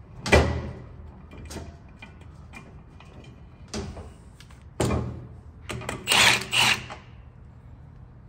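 Metal clanks and knocks from handling a strut and coil spring in a strut spring compressor: a loud clank shortly after the start, a few lighter knocks and clicks, and a louder rattling cluster a little after the middle.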